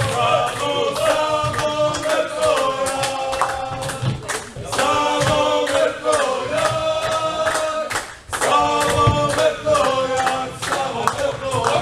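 A group of voices singing a chant together in long held notes over a fast, regular beat of sharp knocks, about three a second, with a brief break in the singing near two-thirds of the way through.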